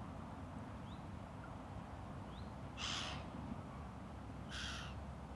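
Quiet lakeside outdoor ambience: a low steady rumble, faint short chirps of small birds, and two short harsh bird calls, about three and four and a half seconds in.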